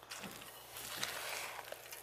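Spatula folding mashed potato filling in a glass bowl, faint, a little louder about a second in.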